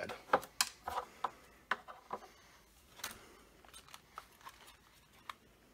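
Light clicks and taps of a plastic RC buggy's body and chassis being handled and turned over in the hands. The clicks come thickly for the first few seconds, then thin out.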